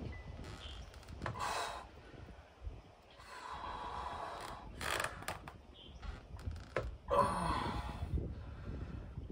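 A man breathing hard through a set of dumbbell preacher curls: about four forceful, noisy exhales spaced a second or two apart, from the strain of lifting near failure.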